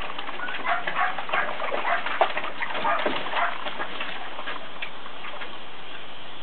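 Border collie puppy splashing through shallow water in a plastic kiddie pool: a quick, irregular run of splashes that thins out toward the end.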